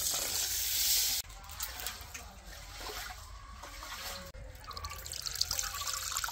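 Water poured from a clay jug onto raw new rice in an aluminium pot, cutting off about a second in. Then quieter sloshing as the rice is washed by hand in the pot, and small splashes near the end as the cloudy rinse water is poured off into a bowl.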